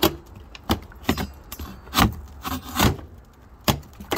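A roofing tool being worked under a nailed-in, brittle cedar shake shingle to pull it out: a run of irregular sharp knocks and scrapes of metal on dry wood, about eight in four seconds.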